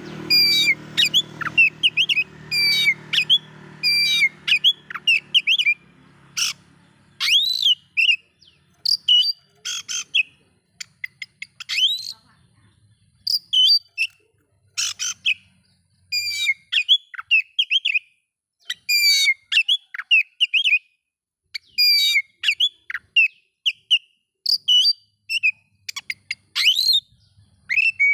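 Oriental magpie-robin (kacer) singing loudly in short, varied phrases of quick whistles and chirps, each phrase followed by a brief pause.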